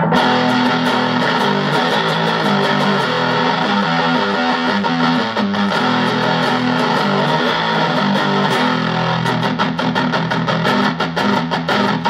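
Electric guitar through a Danelectro Cool Cat Fuzz CF-1 pedal with the fuzz turned fully up and the tone set slightly toward the treble, played into a Pignose amp. It gives a thick, saturated fuzz tone on held notes and chords, with fast repeated picking near the end.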